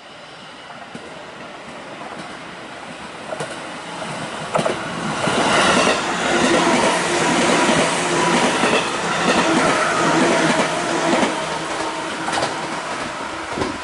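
A 211 series electric multiple unit passing close by, its sound growing as it approaches, loudest in the middle and easing near the end. The wheels click over rail joints a few times.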